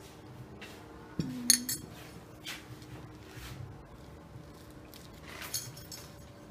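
A utensil clinking against a dish, in a sharp cluster about a second and a half in and again more softly near the end.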